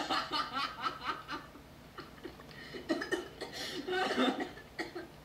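Laughter: quick snickering, chuckling bursts, fading after about a second and a half and coming back about three seconds in.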